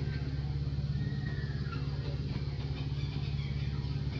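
Steady low drone of an idling engine, with a few faint, short high chirps over it.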